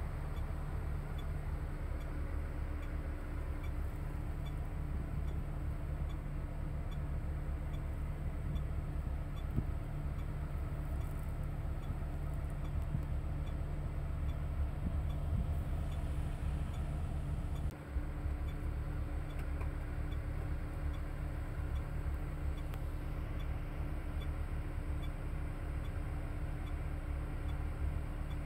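Bus engine and road noise heard inside the cabin as it drives: a steady low rumble.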